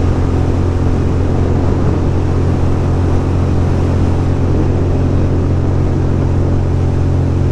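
2006 Ducati Monster 620's air-cooled L-twin engine running at a steady cruise, its pitch holding level with no revving, under a constant rush of wind and road noise.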